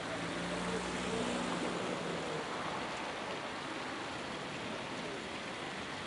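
Outdoor street ambience: a steady hiss of background noise, with a low engine hum during the first two seconds or so.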